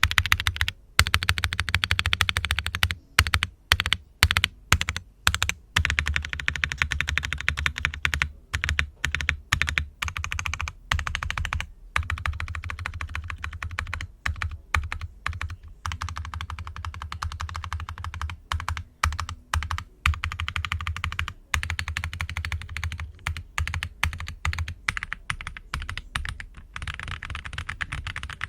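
Fast typing on a QK80 tenkeyless mechanical keyboard with Boba U4T tactile switches, lubed and filmed, on an aluminium plate and with PBT keycaps: a quick run of deep, muted keystrokes with short pauses between bursts.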